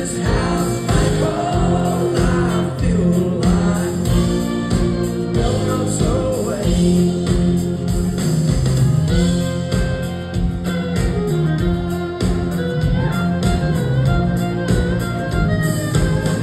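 Live country band playing: a male singer with a strummed acoustic guitar over drums and a steady beat.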